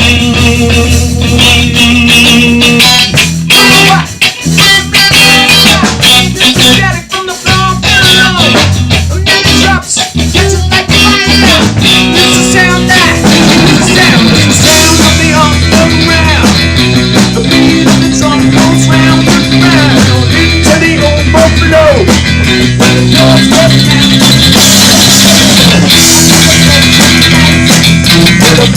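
Instrumental rock-pop music with electric guitar, bass guitar and a drum kit, with no singing.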